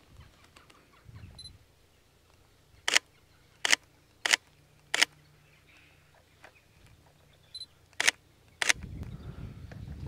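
Camera shutter clicking six times: four single shots in quick succession a few seconds in, then two more near the end. A low rushing noise comes up just after the last click.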